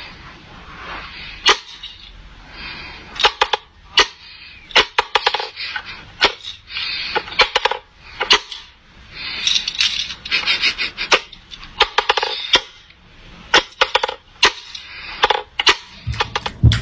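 Sharp wooden clacks and knocks from a wooden whack-a-mole cat toy, as its wooden plungers are worked and a cat paws and slaps at the holes. The knocks come irregularly, often in quick clusters, many times over.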